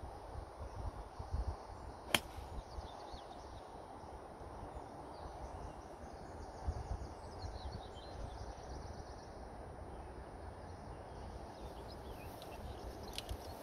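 A single sharp click of a golf club striking the ball about two seconds in, over low wind rumble on the microphone and faint bird chirps.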